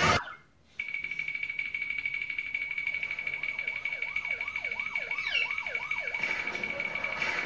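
Cartoon soundtrack: a steady high electronic tone pulsing rapidly like an alarm. In the middle a run of quick swooping warbles comes about three times a second, with one short falling whistle.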